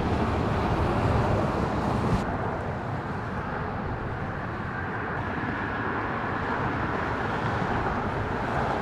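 Steady road traffic noise: a continuous rush of passing vehicles with no distinct single event.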